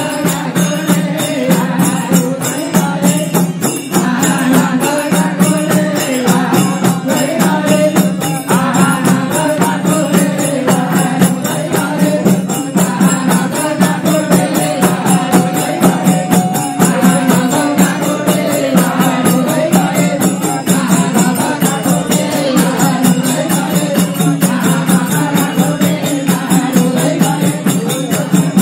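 Nepali bhajan music: devotional singing and chanting over a steady drone, with jingling percussion keeping an even beat.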